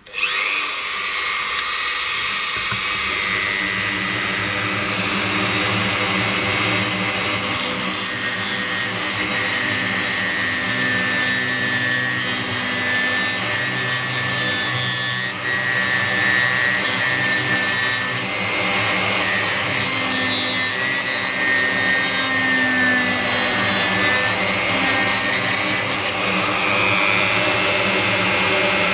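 A handheld rotary tool with a carbide burr starts up and grinds into a burnt hole in a circuit board, enlarging it to clear out the carbonised board material. It makes a steady motor whine over grinding noise.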